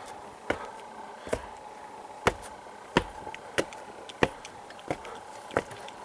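Footsteps climbing rough concrete and stone steps: sharp, even treads about every two-thirds of a second.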